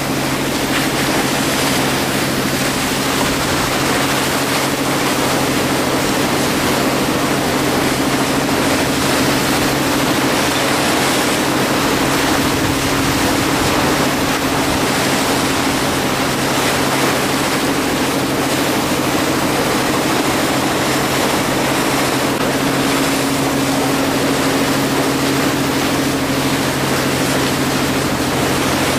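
A boat's engine running steadily under way, with a constant rush of water along the hull.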